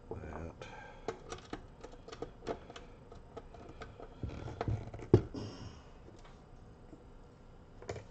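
Scattered clicks and taps of RCA plugs and wires being handled at a car amplifier's input end, with one louder knock about five seconds in.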